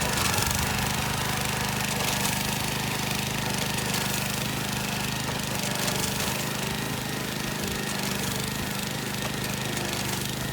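Small farm machine running steadily, a constant hum with a dense mechanical rattle.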